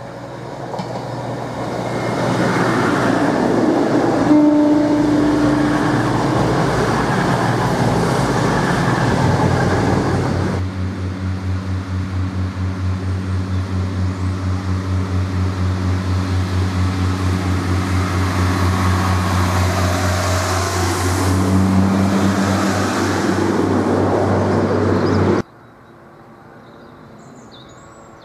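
A CrossCountry Voyager diesel multiple unit passes at speed, its noise swelling into a loud rush with a brief steady tone partway through. Then a Pacer railbus's underfloor diesel engine gives a steady low drone that pulses about twice a second, with another short tone near the end. The sound cuts off suddenly to a quiet low rumble of a train further away.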